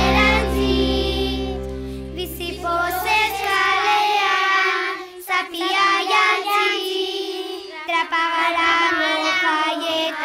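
The festival song's final chord is held and fades out over the first few seconds. Children's voices then sing on their own, with no instrumental accompaniment.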